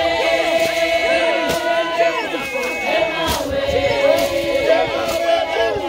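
A group of women singing a Siswati traditional wedding chant together, many voices holding and sliding between notes, with a few sharp cracks now and then.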